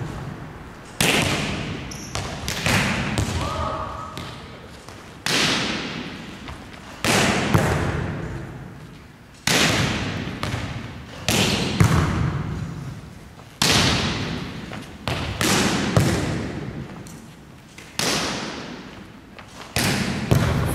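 Volleyballs being hit and dug in a rapid defensive drill: a sharp smack of hand or forearms on the ball every second or two. Each hit echoes off the gym's hard walls and floor.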